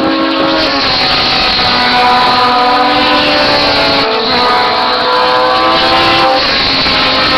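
Several historic Formula 2 racing car engines running at high revs together, their pitches falling and rising as the cars brake into a corner and accelerate away.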